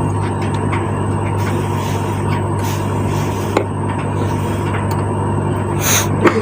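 LG direct-drive front-loading washing machine running, a steady low hum, with two sharp knocks, one about halfway through and one near the end.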